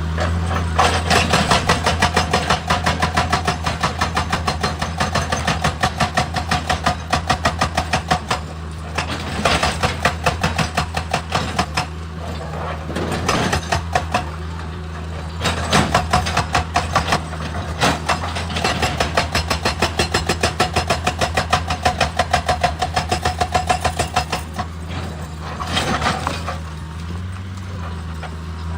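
Excavator diesel engine running steadily under a hydraulic rock breaker hammering in rapid bursts of several seconds, about ten blows a second, with short pauses between bursts.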